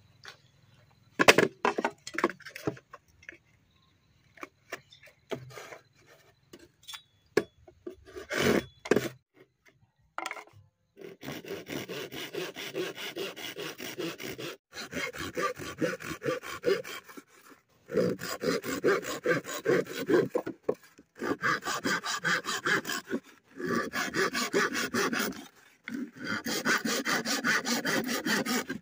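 Saw blade cutting through a dry bamboo pole in quick, rasping strokes that come in runs of a few seconds with short pauses. Before the sawing there are a few separate knocks of bamboo being handled.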